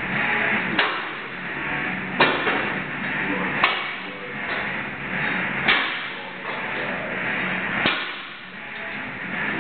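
Sharp metal-on-metal knocks, five in all, spaced a second or two apart, each with a short ring, over a steady background noise: the work of moving a heavy engine lathe by hand.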